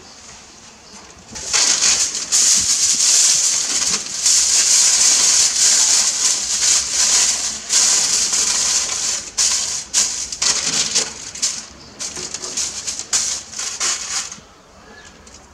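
Aluminium foil crinkling and crackling as gloved hands crumple and tuck it over meat on a metal platter. It starts about a second and a half in and stops shortly before the end.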